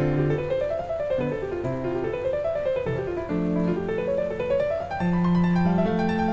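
Piano playing calm classical-style music: flowing arpeggios that climb and fall over held bass notes.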